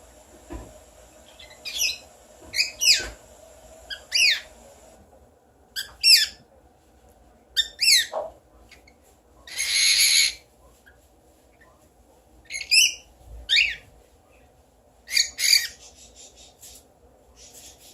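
Pet mimicking bird giving short whistles that each fall in pitch, mostly in pairs, about ten in all. About ten seconds in comes a noisy sneeze-like burst lasting nearly a second, the bird's imitation of its owner's sneezing. Soft quick chatter follows near the end.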